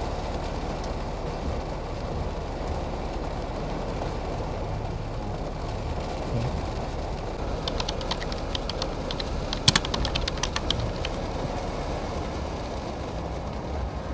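Steady low rumble inside a car's cabin in heavy rain, with a run of sharp, irregular clicks and taps about eight to eleven seconds in.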